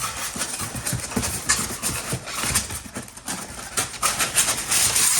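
Polystyrene packing pieces being tipped out of a cardboard box, with dense irregular rattling, crackling and squeaking.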